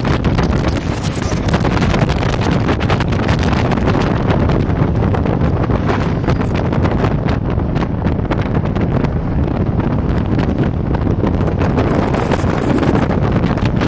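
Wind buffeting the microphone aboard a speeding jet boat: a loud, steady rush with the boat's engine and rushing water under it.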